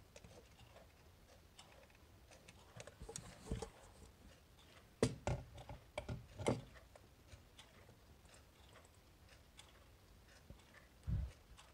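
Quartz wall clocks ticking softly, with a few louder clicks and knocks about three, five and six and a half seconds in and a low thump near the end.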